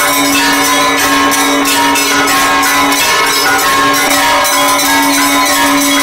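Temple bells rung continuously, with rapid strikes overlapping into a dense, steady ringing over a sustained low hum.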